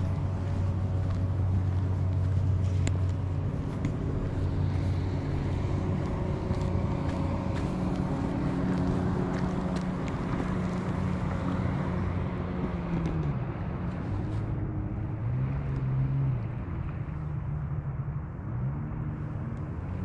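An engine running steadily, its pitch dipping and rising again several times in the second half.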